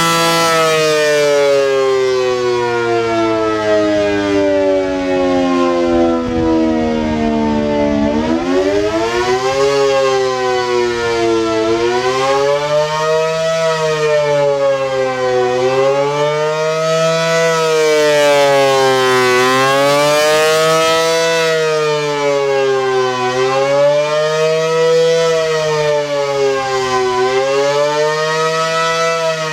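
American Signal Allertor 125 electronic outdoor warning siren. Its steady alert tone glides down in pitch for about eight seconds. It then switches to the attack signal, a wavering wail that rises and falls about every four seconds.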